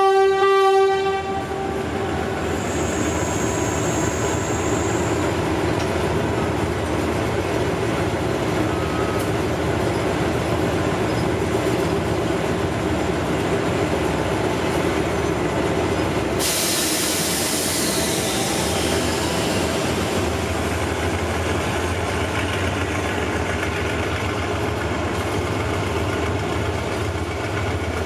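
Diesel locomotive horn sounding, ending about a second in. Then the locomotive's diesel engine runs steadily as it pulls the express train away and the carriages roll past. A hiss starts about 16 seconds in and fades over a few seconds.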